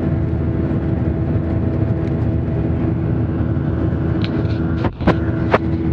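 Steady jet-airliner cabin noise from the underwing turbofan engines at climb power as the aircraft climbs out after takeoff, with a constant drone and low hum tones. Near the end the noise briefly dips and two sharp clicks sound half a second apart.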